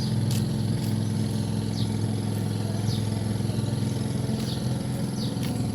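Motorized fishing boat's engine running steadily as it passes, a low, even hum. Faint short high chirps recur about once a second over it.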